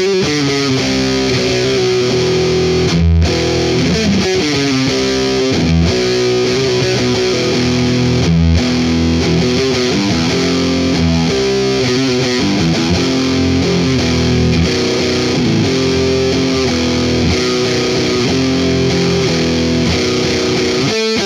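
Distorted electric guitar playing a metal riff, with held chords changing every second or so and short breaks about three and eight seconds in.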